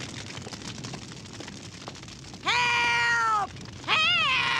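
Two long, wailing cries of "Help!" from an old woman's voice inside the burning house. The first comes about two and a half seconds in and the second, wavering, about a second later. Faint fire crackling runs underneath.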